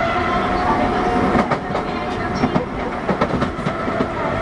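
Osaka Metro 21 series subway train running with a steady whine, its wheels clicking over rail joints and points from about a second and a half in, as it pulls into its terminal station.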